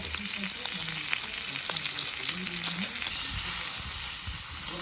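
Food sizzling in a hot pan: a steady hiss with small scattered crackles.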